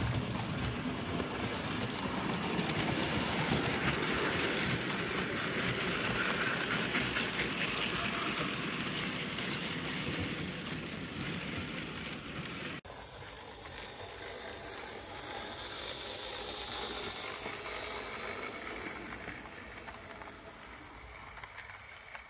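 Model train running along the layout's track, a steady rumble of wheels on rail as it passes close by. About 13 s in the sound cuts abruptly to a quieter passage, which swells and then fades as another train goes by.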